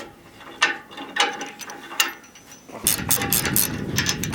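Ratchet clicking: a few separate clicks, then a fast run of ratcheting clicks about three seconds in.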